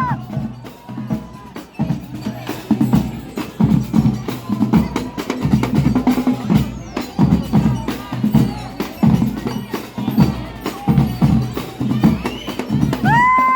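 Marching band percussion playing a steady marching rhythm on bass drums and snare drums, with a short, high held note sounding near the end.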